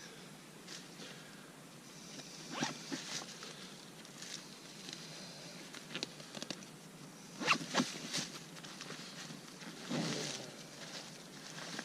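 Hunter's clothing and gear being handled: irregular rustling with short, rasping, zipper-like scrapes, the loudest a few seconds in, past the middle and near the end.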